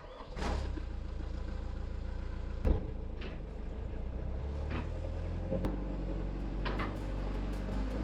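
Payloader's engine running steadily, with a single sharp clunk about a third of the way in and a few fainter clicks.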